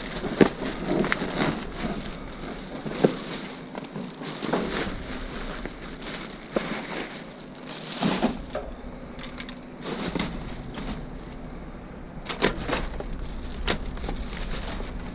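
Plastic bags and packaging rustling and crinkling as they are handled, with scattered sharp knocks and clicks.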